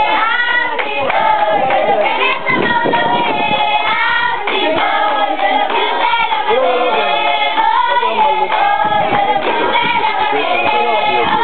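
A large group of children singing together, many voices at once, continuing steadily without a pause.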